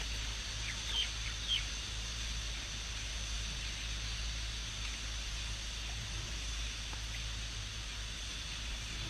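Outdoor ambience: a steady low hum and faint hiss, with two short high bird chirps about a second in.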